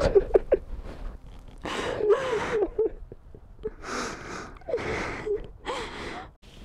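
A woman sobbing: sharp gasping in-breaths broken by short, wavering, high-pitched cries, in a run of bursts that dies away near the end.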